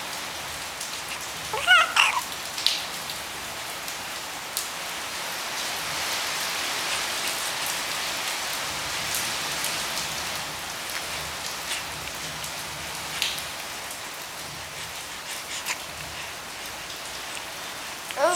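A steady rain-like hiss throughout, with a short high, rising squeal about two seconds in and a few faint clicks.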